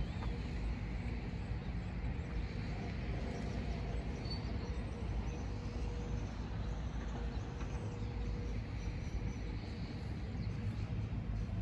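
Steady low rumble of road traffic in the open air, with no single event standing out.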